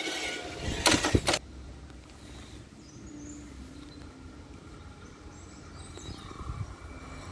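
Level-crossing barrier arms rising, with a quick cluster of loud, sharp knocks about a second in. After that, quiet outdoor background with the low sound of a car approaching near the end.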